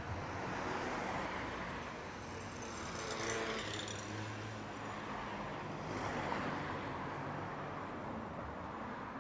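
Street traffic: motor vehicles running past, a low engine hum with tyre and road noise that swells about three seconds in and again about six seconds in.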